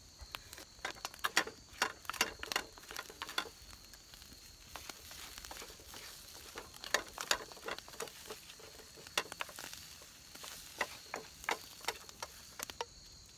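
Spatula stirring and scraping eggs with meat in a frying pan over a campfire: irregular clicks and scrapes in clusters, over a faint sizzle of frying.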